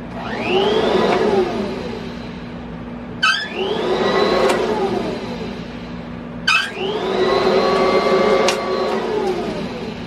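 An old lathe's electric motor, fed through a rheostat, speeds up and winds back down three times, its whine rising, holding and falling each time. A sharp click comes before the second and third runs, over a steady hum.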